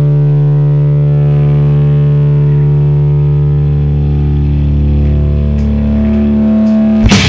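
Distorted electric guitar sustaining one steady droning note through an amplifier; near the end the full metal band comes in with a crash of guitars and drums.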